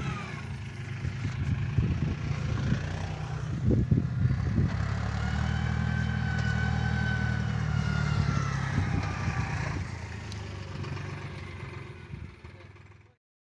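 Tractor diesel engine running hard under load while towing a tractor stuck in mud. A high whine rises and falls over it midway, with a few knocks near the start. The engine fades out and stops near the end.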